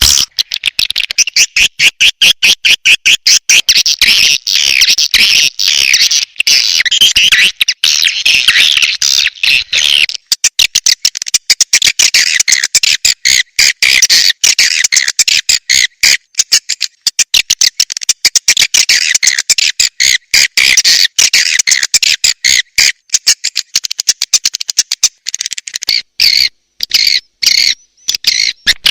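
Edible-nest swiftlet call-sound recording: dense, rapid chattering and clicking twitters, the lure call played in swiftlet houses to draw swiftlets in. The chatter runs in fast packed streams with brief breaks, thinning a little near the end.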